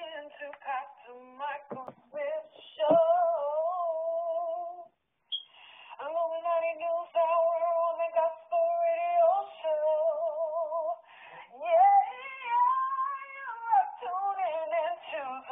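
A woman singing, holding long wavering notes with vibrato, with a brief pause about five seconds in.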